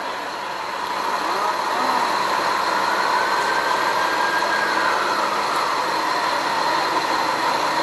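Steady vehicle engine noise, like engines idling nearby, with a faint whine that rises and falls once near the middle.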